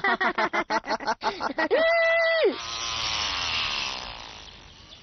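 A remote-control toy plane's small motor: a steady whine that then falls in pitch and fades as the plane flies away. Before it, a quick run of short voice sounds.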